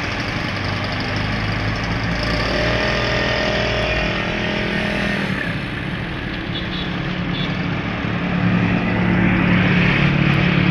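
Road traffic: vehicle engines running and passing close by, getting louder near the end.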